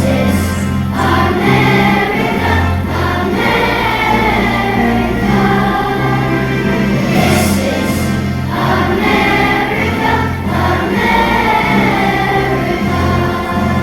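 A choir singing a patriotic song to instrumental accompaniment, with sustained bass notes under the voices.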